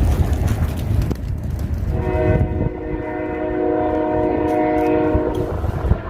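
Wind buffeting the microphone as a low rumble throughout. From about two seconds in, a long horn blast of several steady notes sounding together holds for about three and a half seconds.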